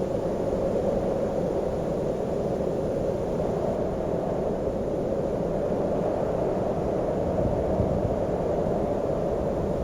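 Strong wind blowing steadily, a dense low rushing noise that does not let up.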